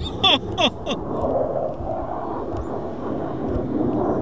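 Steady, distant jet rumble of a Eurofighter Typhoon's twin EJ200 turbofans as the aircraft approaches. A few short falling calls sound in the first second.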